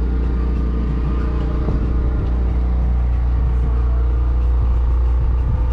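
An engine aboard a fishing boat running steadily: a deep, even hum that does not change.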